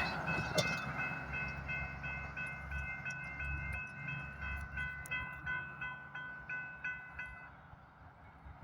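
Railroad crossing bell ringing in fast, evenly repeated dings, stopping near the end, over the low rumble of a Union Pacific train that fades away.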